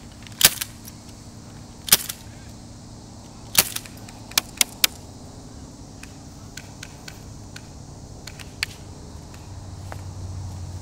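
Airsoft guns firing single shots: sharp pops about half a second, two seconds and three and a half seconds in, then three quick shots around four and a half seconds, followed by a few fainter ones. A low steady hum grows louder near the end.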